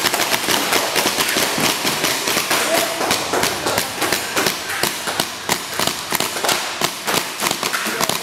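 Paintball guns firing a quick, irregular string of sharp pops, several a second.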